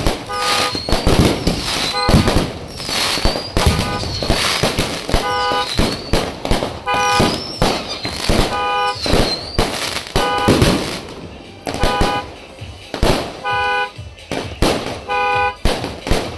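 Aerial fireworks firing in quick succession: a steady run of bangs and crackling bursts, with short high whistles in the first half. Short horn toots sound about every one and a half to two seconds, clearest from about five seconds in.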